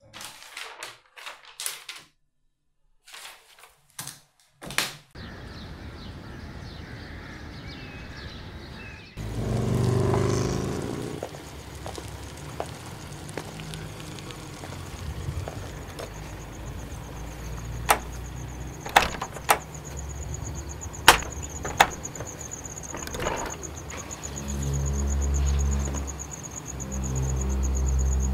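Night ambience with crickets chirping, laid over a short run of sharp knocks and clicks at the start, a low swelling sound about nine seconds in, scattered sharp clicks, and a low drone that swells twice near the end.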